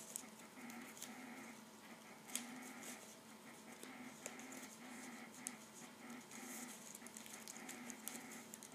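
Faint rustling and creasing of a sheet of origami paper being folded by hand, with sharp little crackles, the loudest about two and a half and five and a half seconds in, over a quieter, evenly pulsing background noise.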